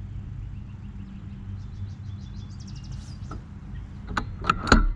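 Birds chirping over a steady low hum, then a few sharp clicks and knocks and a heavy thump near the end from handling the mower, just before its engine is pull-started.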